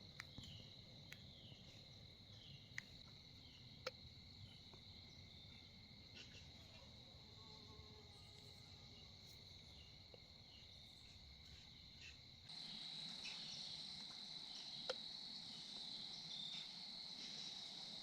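Faint insects trilling steadily, a high continuous drone with quick repeated chirps, and a few soft clicks. The insect sound steps up in loudness about two-thirds of the way through.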